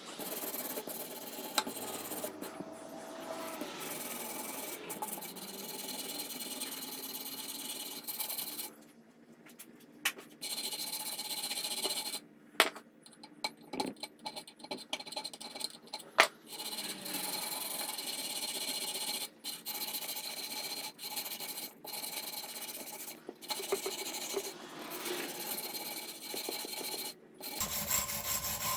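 Wire brush scrubbing the aluminum housing of a Honda trash water pump, a steady scratchy rasping broken by a few short pauses.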